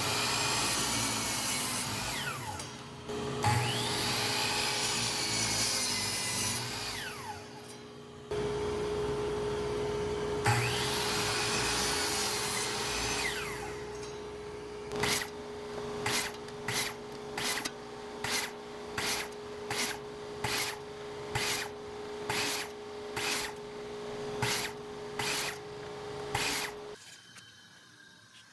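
Delta Cruzer 10-inch miter saw making three cuts, its motor winding up and down each time, with a steady hum, likely a dust collector, starting under the third cut. This is followed by about twelve seconds of sharp strokes, about one and a half a second, over the continuing hum.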